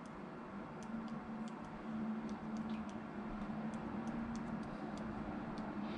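Light, irregular taps of typing on a phone keyboard, a few a second, over a steady low hum.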